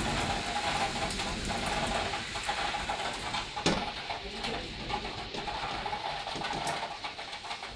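Heavy thunderstorm rain falling, a steady hiss with scattered drops tapping on the balcony windows. One sharp click sounds about three and a half seconds in.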